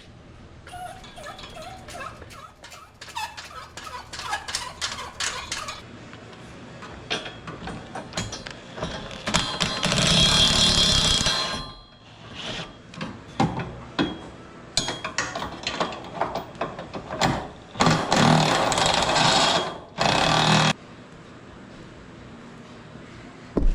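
Hand-tool work under a vehicle: rapid clicking and clattering of metal tools, broken by two loud bursts of a power tool, one about ten seconds in and one near the end, each lasting about two to three seconds.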